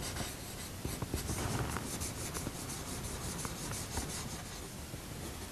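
A coloured pencil scratching across drawing paper in a quick run of short strokes, shading small curls of hair.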